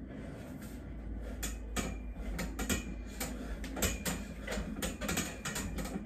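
Red freestanding steel dip bars clicking and rattling under a man's weight during dips: irregular sharp clicks, several a second, that start to crowd together about a second in, over a low rumble.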